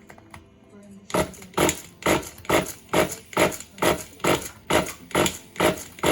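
Starter motor slowly cranking the four-wheel-drive's engine without it catching: a loud, even pulse a little over twice a second, starting about a second in. The cranking is weak because the battery is low and not fully charged.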